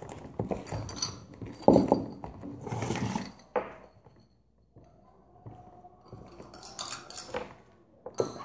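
Small plastic spoons scraping and knocking against plastic tubs as slime is stirred, in irregular clatters with a short lull in the middle.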